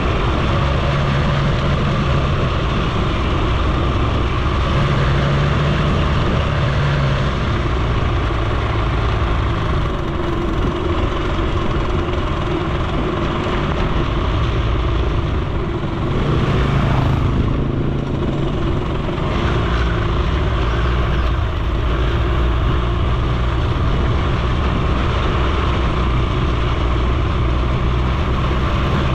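Suzuki FZ50 moped's small two-stroke single-cylinder engine running steadily under way on a dirt road, with road noise; the engine note shifts briefly a little past halfway through.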